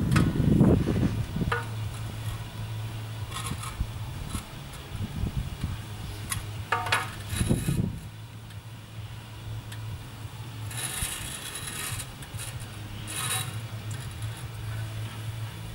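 Mason's tools and new sandstone blocks being handled while a window surround is rebuilt: scattered light knocks and clinks, a dull thump at the start, and two brief scraping rubs about two-thirds of the way through, over a steady low hum.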